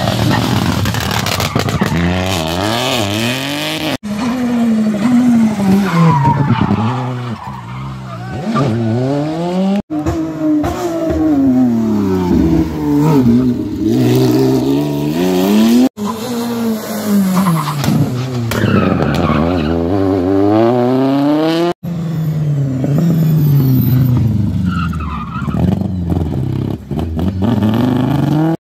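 Rally cars passing one after another, engines revving up and falling back through gear changes, with tyre squeal in the corners. The sound breaks off abruptly every six seconds or so as one car's clip is cut to the next.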